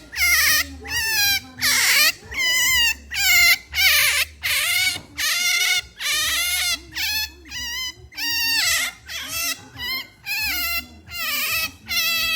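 Pet otter making its pampering noise: high-pitched, wavering squeaking calls, one after another about twice a second.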